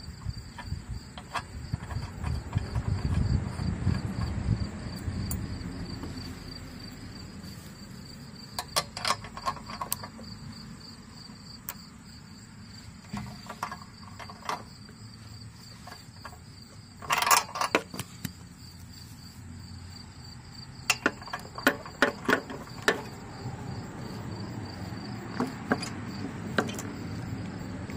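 A socket ratchet clicks in several short runs, the loudest about two-thirds of the way through, as a new spark plug is tightened into a small lawn mower engine. Crickets keep up a steady high trill underneath, and there is low handling noise in the first few seconds.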